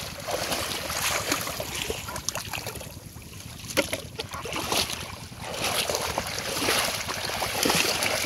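Shallow water splashing and sloshing as a person wades through it and moves a plastic tub, louder near the end as the wading picks up.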